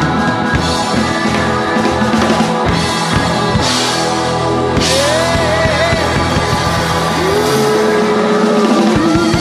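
Live rock band playing, with drums, bass, electric guitar and keyboards. Two cymbal crashes come about four and five seconds in, and a held, wavering melody line runs through the second half.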